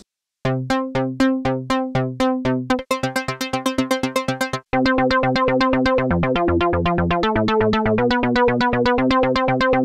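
Arpeggiated synthesizer presets from FL Studio's Kepler, a Juno-60-style analog-modelled synth, played one after another: first a slower pulsing pattern of repeated notes, then a quick one, then after a brief break rapid notes over a held tone with a bass line stepping down and back up.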